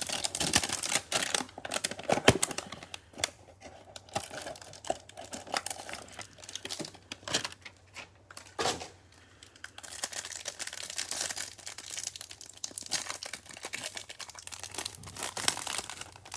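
Cardboard NBA Hoops trading-card hanger box being torn open by hand, then the clear plastic wrapper around the stack of cards crinkling as it is pulled off; a dense run of irregular tearing and crackling.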